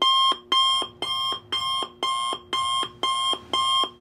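Countdown timer's electronic alarm-clock beeping: a loud pitched beep repeating about twice a second, each beep ending in a short lower note, cutting off suddenly at the end.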